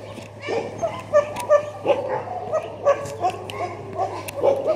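Dogs barking over and over, about three short barks a second.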